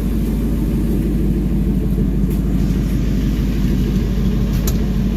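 A 2001 Ford F-250's 5.4-litre V8 idling steadily with its fresh oil change, with two short clicks partway through.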